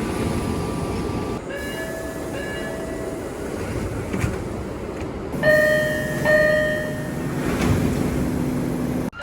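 Exterior door chimes of MBTA Orange Line 1200-series subway cars: a series of short electronic chime tones, each recording cut off abruptly and followed by the next. The chimes sound over the low rumble of the train standing at the platform, and the loudest pair comes near the middle.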